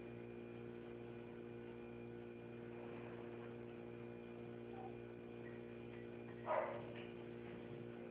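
Steady low electrical hum, with one short noise about six and a half seconds in.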